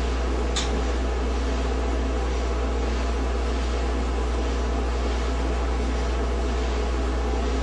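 GE gas dryer running through its heat cycle: a steady low hum and rushing air from the motor, tumbling drum and blower, with a single brief tick about half a second in.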